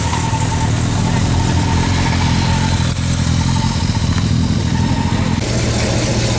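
Engines of slow-moving vehicles passing at close range, a classic American car and a sport-touring motorcycle, giving a steady low engine note. A little after five seconds the note changes as another classic car's engine takes over.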